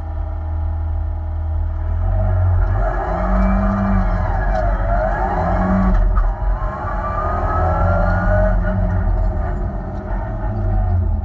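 Renault Clio 5 rally car engine heard from inside the cabin, running steadily at first, then accelerating hard from about two seconds in. Its pitch climbs through the gears, with a shift about five seconds in and another about a second later.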